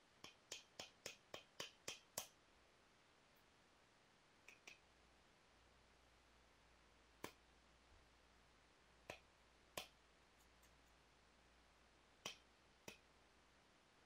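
Sharp clicking taps of a knapping tool on a piece of Rainy Buttes stone. A quick run of about eight light taps, some four a second, comes first, then scattered single clicks.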